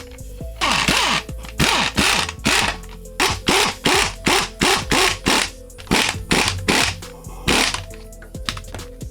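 Background music under a run of short, loud, whirring bursts of a power tool, about two a second for some seven seconds, each falling in pitch as it stops.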